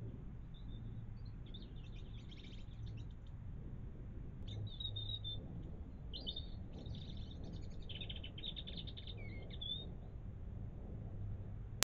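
Small songbirds chirping and twittering in short high trills, in several bursts, over a low steady hum. A sharp click near the end.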